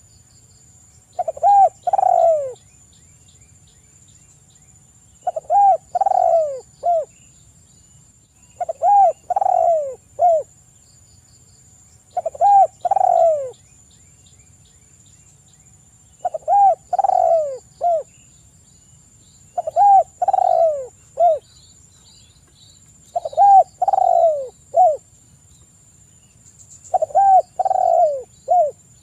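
Spotted dove (tekukur) singing its 'kuk 3' cooing song: phrases of three or four short, low coos, repeated about every three and a half seconds.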